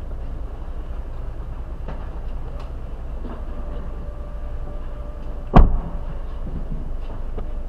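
A car's trunk lid slammed shut: one loud thump a little over two-thirds of the way in, heard from inside the cabin over a steady low rumble.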